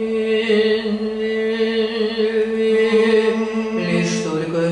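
A man singing one long held vowel on a steady note, stepping down to a lower note near the end.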